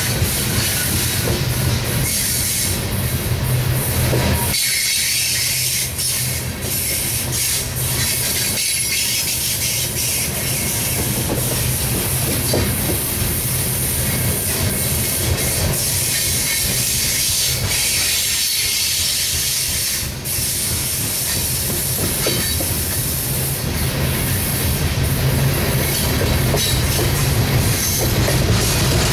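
Loaded coal hopper cars of a freight train rolling past: a steady rumble of steel wheels on rail, with scattered clicks as wheels cross rail joints.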